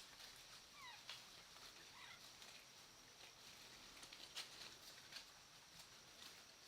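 Faint forest ambience: a few short, thin bird calls that glide in pitch, some mew-like, with scattered faint ticks over a steady high hiss.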